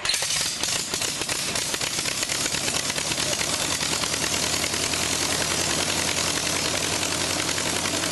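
Air-cooled aircraft engine turning its propeller, running steadily just after starting, with a fast, even train of firing pulses.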